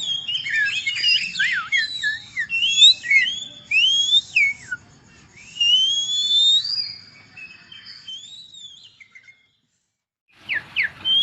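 A man whistling an imitation of songbird song. A rapid run of varied rising and falling whistled notes gives way to a long rising whistle and sparser notes. After about a second of silence, quick sharp notes resume near the end.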